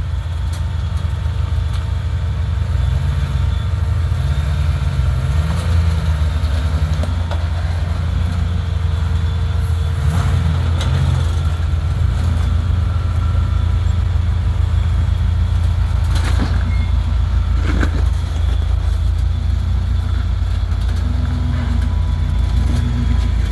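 Lifted Ford Explorer's engine running at low revs as it crawls over large boulders, its pitch rising and falling with light throttle. A few brief knocks come through around ten seconds in and twice near seventeen to eighteen seconds.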